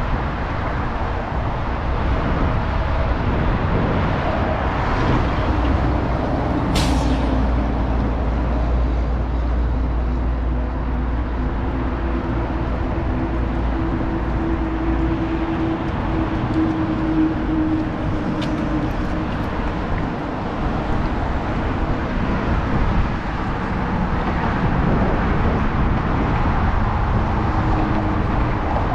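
Road traffic passing close by, with a heavy vehicle's engine hum through the middle and a short sharp hiss about seven seconds in.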